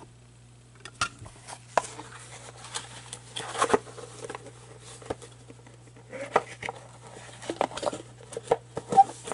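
Handling noise of cardboard boxes and card packaging: scattered clicks, knocks and rustles, busiest about three and a half seconds in and again in the last three seconds, over a steady low hum.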